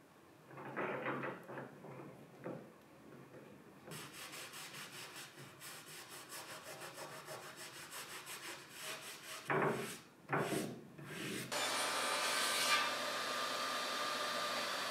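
A paper towel rubbed back and forth in quick strokes over a pipe-clamped, glued-up wooden panel. Then two loud knocks, and a table saw running steadily with a thin whine for the last few seconds.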